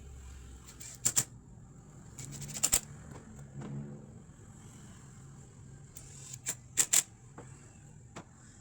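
Sharp wooden knocks, mostly in quick pairs a fraction of a second apart: about a second in, near three seconds in and near seven seconds in, with a single lighter one near the end.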